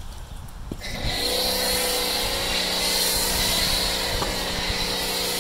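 MJJC foam cannon on an electric pressure washer (Sun Joe SPX3000) spraying snow foam: the hiss of the spray starts about a second in, and the pressure washer's motor and pump come on at once with a steady tone under it.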